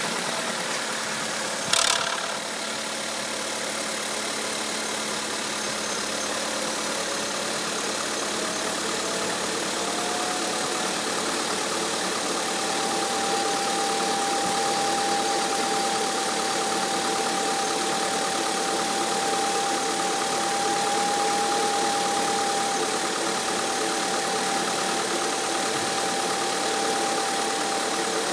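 Volkswagen Scirocco 1.4 TSI 160 twincharger engine idling just after a start, the odd start-up noise its owner is recording. About two seconds in there is a brief harsh burst. From about six seconds a steady whine rises in pitch over a few seconds and then holds over the idle.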